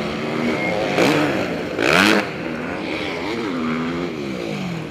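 MX1-class motocross motorcycle engine revving hard, its pitch rising and falling repeatedly with throttle and gear changes as the bike climbs a dirt rise. It is loudest about two seconds in.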